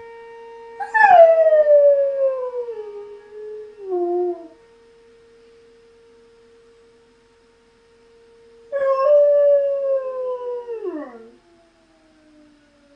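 German Shepherd howling twice, each a long howl falling in pitch, to an outdoor warning siren's steady tone during its monthly test. The siren is fainter under the howls and begins winding down in pitch near the end.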